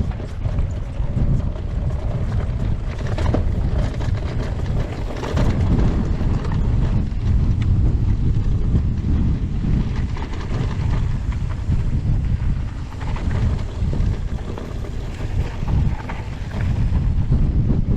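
Wind buffeting the camera microphone as an e-mountain bike is ridden fast down a rough trail, a steady low rumble, with scattered knocks and rattles from the bike running over rocks.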